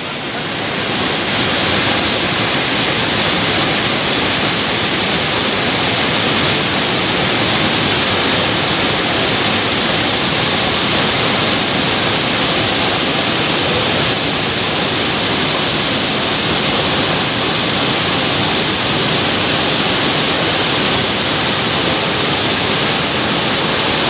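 Waterfall in heavy, muddy flow crashing into its pool: a loud, steady rush of water that swells up over the first second.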